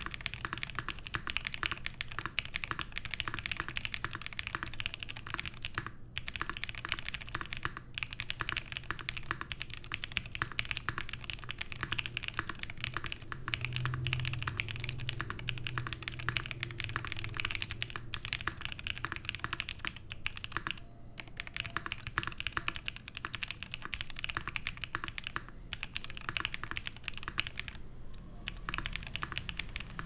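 Continuous typing on a Mode Sonnet mechanical keyboard with lubed Prevail Epsilon switches, an aluminium plate and GMK Olive keycaps: a steady, rapid run of keystroke clacks with a few brief pauses.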